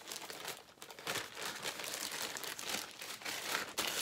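Yellow plastic courier mailer satchel crinkling and rustling continuously as it is handled open and a box is pulled out.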